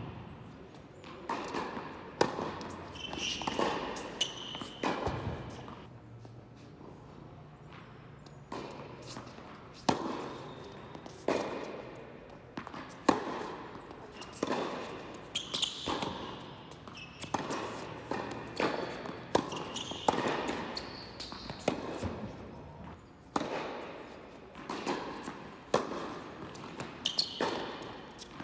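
Tennis rally on an indoor hard court: rackets strike the ball and the ball bounces, each sharp hit echoing in the large hall, about one every second or so. A short lull falls about six to eight seconds in.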